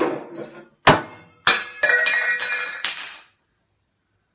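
Hard glassy objects knocked over and clattering: a sharp knock about a second in, then a second knock followed by ringing clinks and rattling for about a second and a half.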